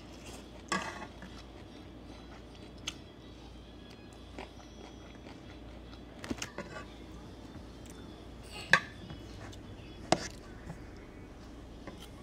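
A person eating: chewing and biting sounds with a few sharp clicks, the loudest about nine seconds in.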